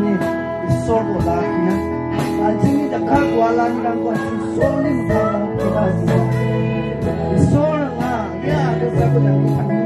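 Live praise-and-worship song: strummed acoustic guitar with singers on microphones through a PA, steady and continuous.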